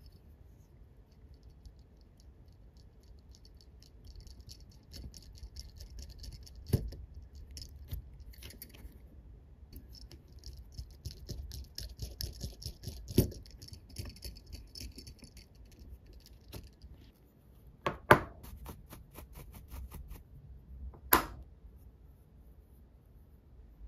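Pin vise hand drill worked on the hub of a small scale-model spoked wheel: stretches of fine, quick ticking and scraping, with several sharp clicks along the way.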